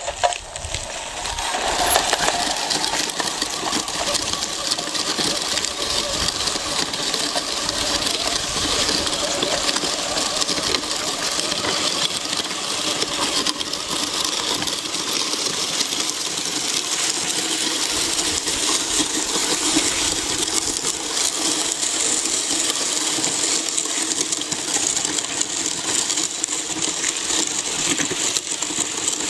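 Radio-controlled truck's motor and gear drive running steadily under load as it pulls children, a continuous mechanical whine with a rattle.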